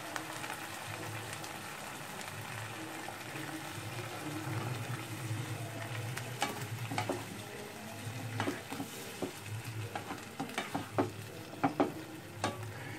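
Boiled bottle gourd sizzling gently in a pan with fried onion and tomato while being stirred, the spoon clinking and scraping against the pan in sharp clicks that come more often in the second half.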